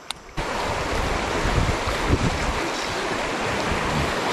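White-water river rapids rushing around a wooden longboat, with wind buffeting the microphone. The rush comes in abruptly about half a second in, after a short click, and stays loud and even.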